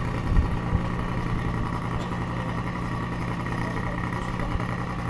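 Portable fire pump engine running steadily at an even speed.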